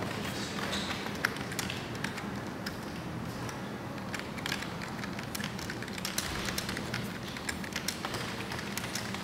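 Typing on a full-size computer keyboard: quick, irregular key clicks, over a steady low hum.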